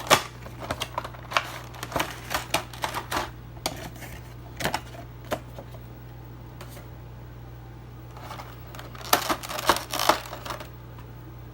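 Handling of a collectible figure's cardboard box packaging: a quick run of sharp taps and clicks, a few single ones, a lull, then another cluster of clicks near the end. A steady low hum runs underneath.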